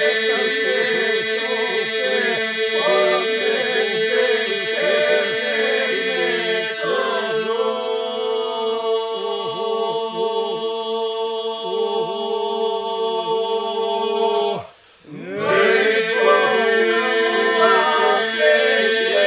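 Men's group singing Lab iso-polyphony: a steady drone held underneath, with solo voices winding and bending above it. About fifteen seconds in, all the voices break off briefly together, then come back in.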